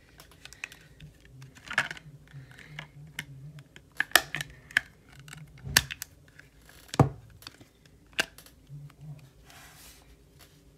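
Clear plastic case being pressed and snapped onto an iPhone 11 Pro Max by hand: scattered clicks and knocks of plastic against the phone, the sharpest about four, six and seven seconds in.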